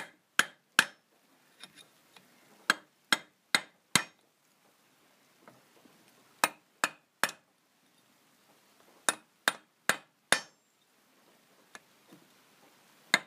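Hammer striking metal: a new front wheel bearing being driven into an Oka's front hub through the old bearing race used as a drift, to sink it deep enough for the circlip. The blows come in short runs of three or four, with pauses of about two seconds between runs.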